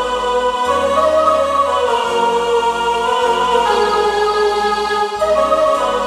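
Roland XPS-30 keyboard playing its humming-choir voice patch (Chorus Hum): wordless sung-sounding chords held over low bass notes. The chord changes about two seconds in and again about five seconds in.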